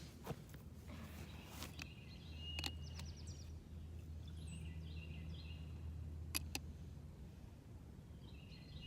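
Small birds chirping in short trilled calls, with a handful of sharp clicks and taps from a hand can opener being fitted onto a can of corn. A faint low hum runs under the middle of it.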